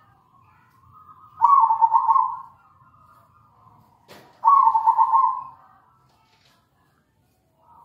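Zebra dove (perkutut) cooing: two quick, stuttering coo phrases about a second long each, some three seconds apart.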